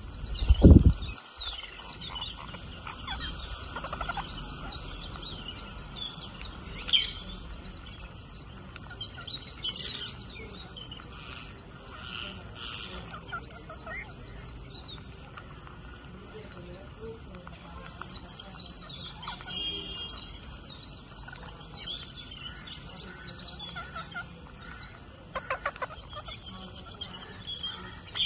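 A flock of rose-ringed parakeets chattering while feeding, many short, high chirps and squawks overlapping without a break. A single loud, low thump about a second in.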